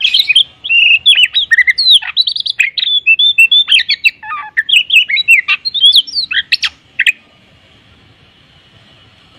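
Oriental magpie-robin (kacer) singing a fast, varied song of whistled notes and chirps that sweep up and down in pitch, packed with imitated fills. The song stops about seven seconds in.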